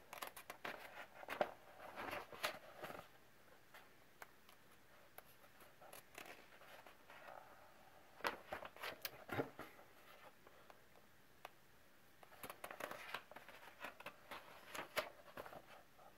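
Coloring book pages being turned and smoothed flat by hand: quiet paper rustling and scraping in three bouts, near the start, around the middle and again toward the end.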